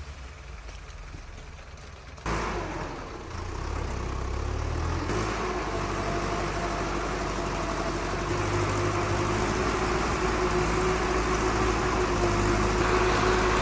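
Heavy vehicle engine running steadily with a held whine, cutting in suddenly about two seconds in and growing slowly louder.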